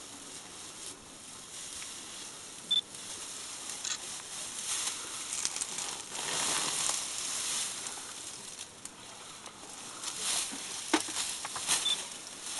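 African elephant feeding at close range: rustling and crackling of grass and leaves as it tears them up with its trunk and chews, with scattered sharp snaps and clicks, the loudest just under three seconds in.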